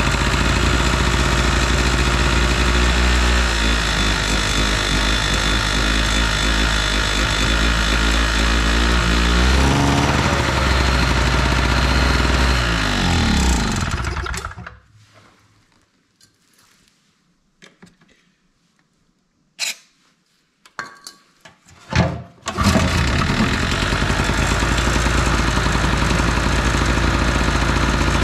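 Chicago Electric 800-watt two-stroke portable generator engine running with its speed wavering, then slowing and dying about halfway through. After a few seconds of quiet and two short noises it fires and runs steadily again. It needs full choke at times to keep running, which the owner puts down to a dirty carburettor or too little fuel getting through.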